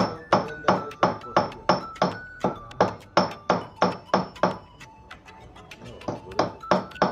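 Hammer blows on metal, each strike ringing, struck at an even pace of about three a second, with a pause of about a second and a half before the blows resume.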